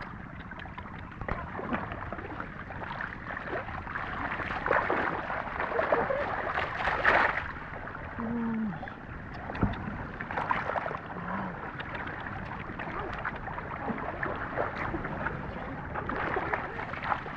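Water splashing and sloshing irregularly, with many small crackles and knocks, loudest around the middle.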